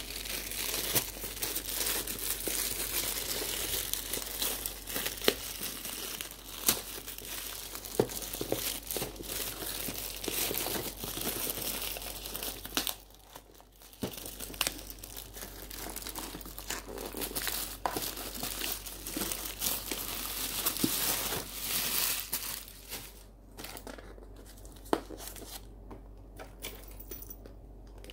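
A taped black plastic bag wrapping crinkling and tearing as hands pull it open off a parcel, a dense rustle full of small crackles. It pauses briefly about halfway through and goes quieter over the last few seconds.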